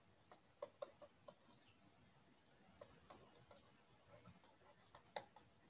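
Near silence with faint, scattered clicks, the loudest about five seconds in: a stylus tapping and dragging on a tablet as words are handwritten.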